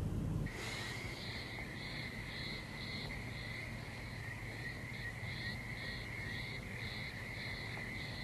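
Crickets chirping at night: a steady high trill, with a second trill pulsing about twice a second, setting in about half a second in.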